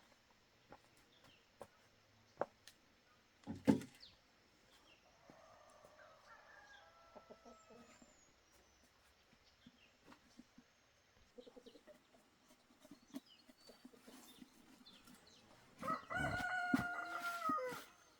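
A rooster crows once near the end, one long call that drops in pitch as it ends. A sharp knock about four seconds in; faint short bird calls and scattered clicks otherwise.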